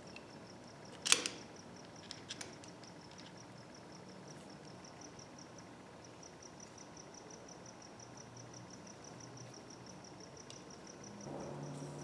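A sharp metallic click about a second in, then a couple of lighter clicks, as a screwdriver works against a lamp bulb socket. A steady, high-pitched chirping at about five pulses a second runs underneath.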